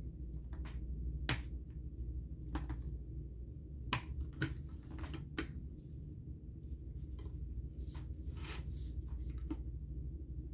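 Scattered light clicks and scrapes of a metal pick prying the round rubber feet off the aluminium underside of an Apple keyboard. A low steady hum runs underneath.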